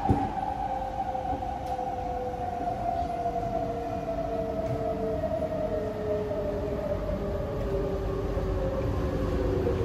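Fuji Electric IGBT-VVVF traction motors of a C151A metro train whining as the train slows, several tones falling steadily in pitch over the steady rumble of the running train.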